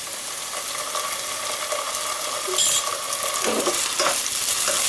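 Onions and ginger-garlic paste sizzling in hot oil in a pot, with a wooden spatula stirring and scraping against the pot; the stirring gets louder about halfway through.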